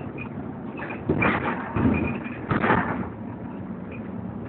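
Inside a Volvo B7TL double-decker bus on the move: the six-cylinder diesel engine and road noise as a steady low rumble, with three louder, noisy surges of about half a second each in the middle.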